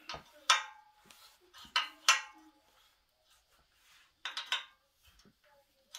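A few sharp, ringing metal clinks of a wrench on the exhaust flange bolts of a Honda Z50 as they are snugged up, spaced a second or two apart.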